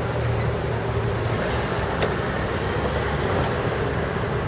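Steady city street traffic noise with a low engine hum underneath.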